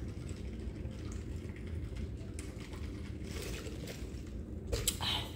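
Gulps of water being drunk from a plastic water bottle, with a couple of short sharp noises near the end.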